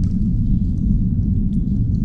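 Underground ambience sound effect: a steady deep rumble, with faint scattered ticks and drips above it.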